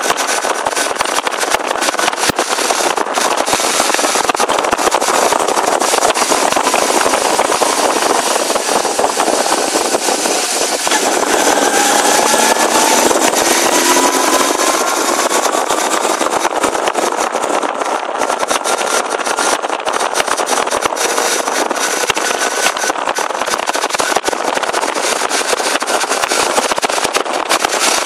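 Suzuki GT550 two-stroke triple motorcycle with a sidecar running along the road, heard from the rider's position under a steady rush of wind noise. The engine note climbs about halfway through as it accelerates.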